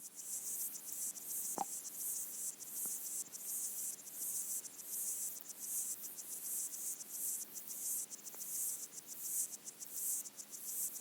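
Underwater chorus of Micronecta pygmy water boatmen stridulating, heard through a hydrophone: a dense, high-pitched, rapidly pulsing buzz that never stops. A short lower blip about one and a half seconds in, and a fainter one later, come from other pond creatures.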